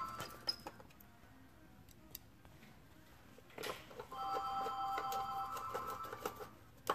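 Screwdriver turning screws into the e-bike's controller cover panel, with scattered light clicks. A telephone rings in the background for about two seconds past the middle of the clip, in a ring-and-pause pattern.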